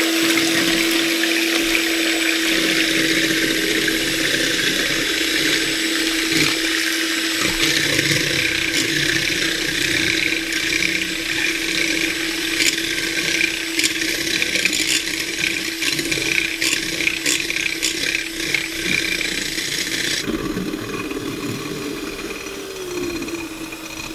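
Electric hand mixer running steadily, its beaters whipping eggs in a glass bowl, with a steady motor whine and scattered clicks; the motor winds down near the end.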